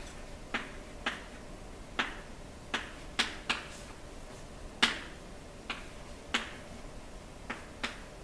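Chalk tapping and clicking against a blackboard as numbers and symbols are written: about a dozen sharp, irregular taps, with a faint scratching between them.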